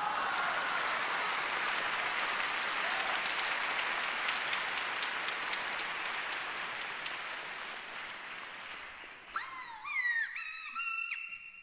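Audience applauding for about nine seconds and slowly dying down. Near the end, short, high, sliding pitched calls with rich overtones start up.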